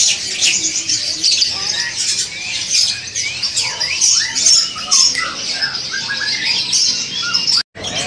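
Many caged birds chirping and chattering together, a dense overlap of short, high calls and quick pitch glides. The sound cuts out abruptly for a moment near the end.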